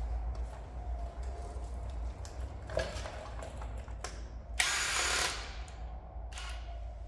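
Cordless drill-driver run in one short burst of under a second, about four and a half seconds in, on the bolt of the 3.0 TDI's serpentine-belt idler pulley, after a few clicks as the tool is fitted to it.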